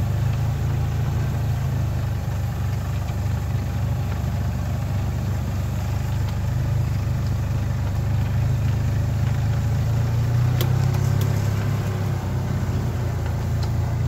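Small utility-vehicle engine running steadily at low speed while driving, a low even drone. There are a couple of light knocks about ten and a half seconds in.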